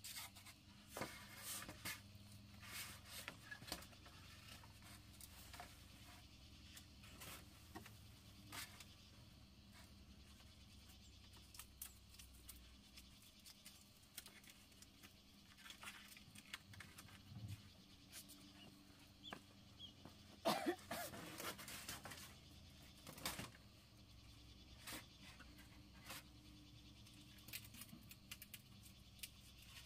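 Faint, scattered knocks, taps and rustles of bamboo as a bamboo brace pole is fitted and tied against a woven bamboo wall, with a louder burst of knocking about 20 seconds in.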